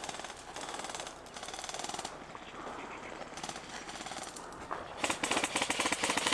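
Airsoft guns firing rapid full-auto bursts: a few fainter strings of shots, then a loud close burst about five seconds in that lasts over a second.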